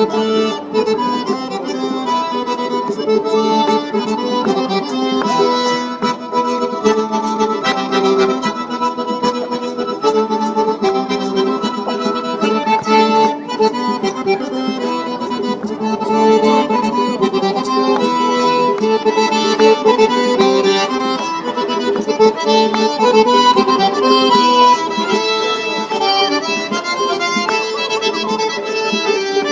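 Accordion playing a fast Circassian dance tune, with sharp clicks keeping the beat.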